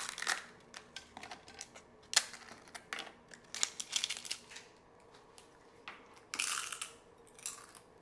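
Crisp microwave-roasted papads (pappadams) being snapped and broken by hand: a quick run of sharp cracks and crackles, with two longer crunching bursts near the end.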